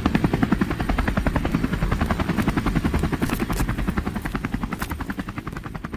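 Helicopter rotor beating in rapid, even chopping pulses, growing steadily fainter through the second half.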